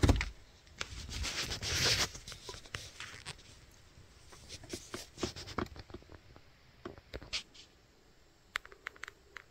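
Rustling and handling noise inside an SUV's cabin for the first two seconds, then quiet with sparse, irregular light clicks and taps.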